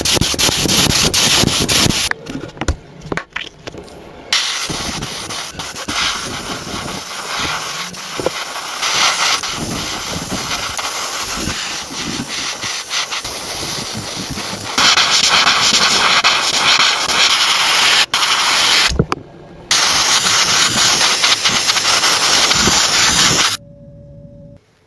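Loud, steady hiss of a high-pressure spray, cut into several stretches with brief breaks, louder in the later part.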